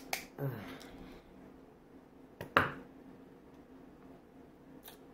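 Kitchen scissors snipping and cracking through the hard shell of a king crab leg. There are a few sharp clicks, the loudest a double crack about two and a half seconds in, and another near the end.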